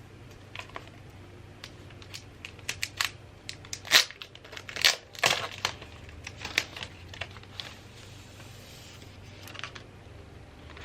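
Hands handling packaging: a run of sharp clicks and taps, loudest about four and five seconds in, with a softer crinkling rustle near the end.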